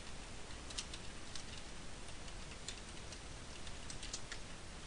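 Faint keystrokes on a computer keyboard as a password is typed, a scattering of light clicks over a steady hiss.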